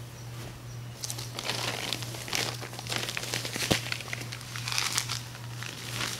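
Plastic bag crinkling and rustling as it is picked up and handled, starting about a second in, with one sharper crack a little past the middle.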